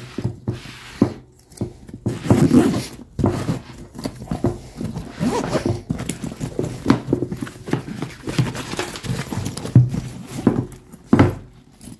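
A Husky nylon tool bag and its shoulder strap being handled: fabric rustling and scraping, with irregular knocks and clicks from the strap's clip and the bag against the table.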